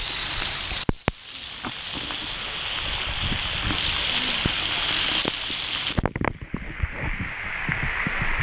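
Splash-pad water jets and sprays hitting the camera: a steady rushing spray with splattering knocks. About six seconds in, the steady spray falls away into scattered drips and spatters.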